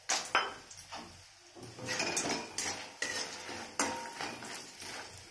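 Metal spatula knocking and scraping against a steel kadai, stirring bori (sun-dried lentil dumplings) as they fry in mustard oil. A couple of sharp knocks come at the start, then a run of repeated scraping strokes.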